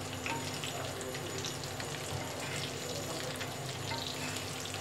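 Masala-coated boiled egg halves sizzling in oil on a cast-iron dosa tawa, a steady sizzle with scattered small crackles, as a metal spatula turns them over.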